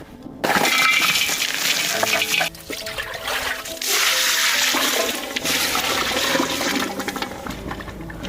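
Water running and splashing in several short segments that cut in and out abruptly, with soft background music underneath.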